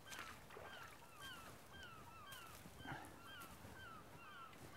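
Faint bird calling over and over: short sliding notes repeated several times a second, over a light outdoor hiss with a few soft clicks.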